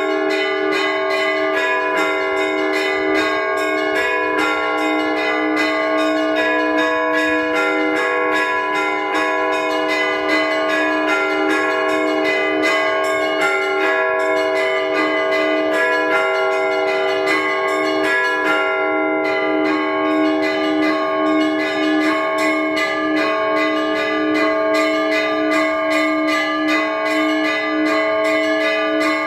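Orthodox church bells rung by a bell ringer: small bells struck in a fast, even pattern, about four or five strokes a second, over the sustained hum of larger bells. The small bells break off for a moment about two-thirds of the way through, then carry on.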